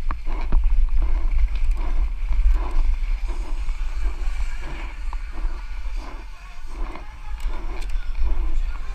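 Wind buffeting a helmet camera's microphone as a mountain bike rolls fast down a rough trail, with scattered knocks and rattles from the bike over the ground.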